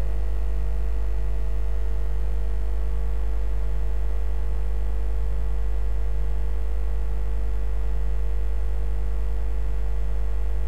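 Steady electrical mains hum, very low and unchanging, with a few faint steady higher tones above it and no voice.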